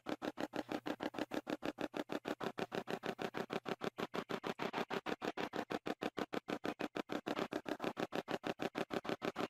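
Spirit box app on a phone, sweeping through a fast, choppy stream of short sound fragments at about eight pulses a second, heard through the phone's speaker.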